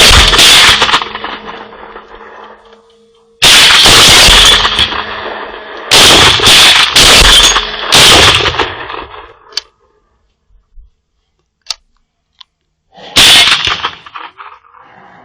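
Rifle shots firing at hogs, each with a long echo fading away. One shot comes at the start and another a few seconds later. Then comes a quick string of several shots, and a last shot near the end.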